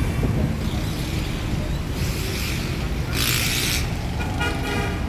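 Wind buffeting the microphone over the noise of dense road traffic below, with a short hiss a little over three seconds in.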